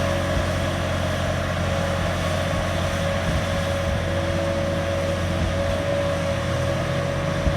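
Steady hum of a vehicle engine running at an even speed, with a constant whine over it.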